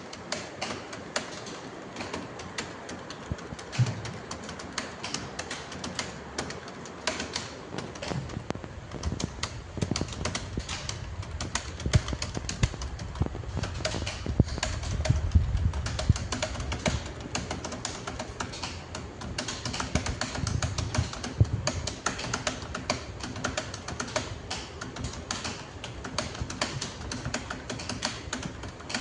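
Fast, continuous typing on a computer keyboard: a steady stream of key clicks, several a second.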